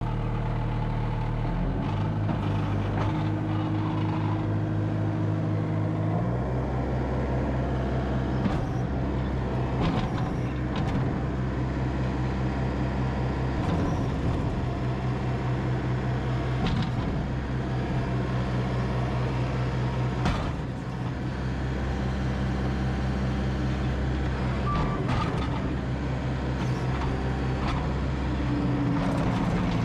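Case TR270 compact track loader's 74 hp diesel engine running steadily, its pitch stepping up about a second and a half in and again around six seconds in. Occasional short knocks and clanks sound over the engine note.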